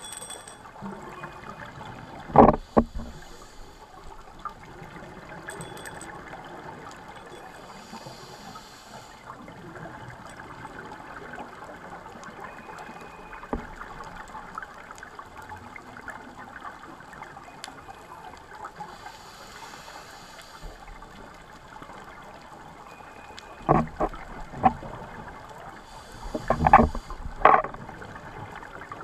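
Scuba diver breathing through a regulator, heard underwater through a camera housing: a few second-long hisses of inhalation and bursts of exhaled bubbles, the loudest about two seconds in and twice near the end, over a steady underwater wash.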